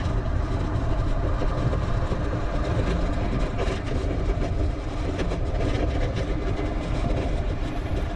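Steady wind rush and rolling noise picked up by a bicycle-mounted action camera while riding, heaviest in the low rumble.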